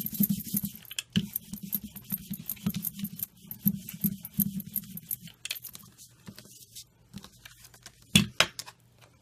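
Speedball rubber brayer rolled fast back and forth over cardstock, its roller making a rapid clicking noise for about the first five seconds, then fading to scattered light clicks. A sharp knock about eight seconds in as the brayer is set down.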